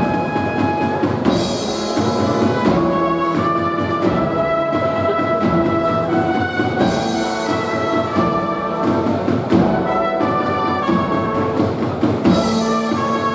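A Spanish cornet-and-drum band (banda de cornetas y tambores) playing: bugles carry a sustained melody over drums, with a crash of high sound about every five and a half seconds.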